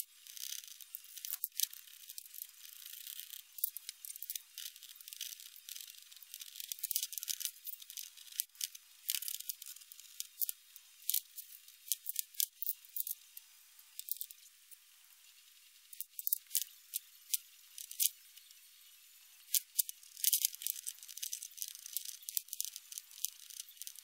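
Small screws and metal and plastic parts of an RC scale truck's front axle clicking and clattering against each other and the workbench as the axle is taken apart with a hex driver. Many short, sharp ticks at irregular intervals, thin-sounding with no bass.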